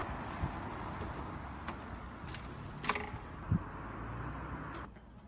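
Street background noise: a steady hum of traffic with a few scattered sharp clicks and a low knock, dropping off abruptly near the end.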